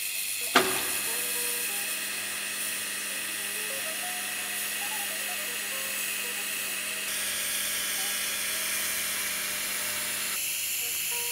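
TIG welding arc struck with a sharp crack about half a second in, then burning steadily with a hiss over a low hum as the root pass is laid with filler wire at 120 amps DC. The hum drops out shortly before the end.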